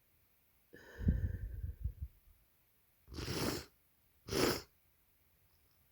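A person with a heavy head cold sneezing once, a voiced burst about a second in, then sniffing twice through a congested nose.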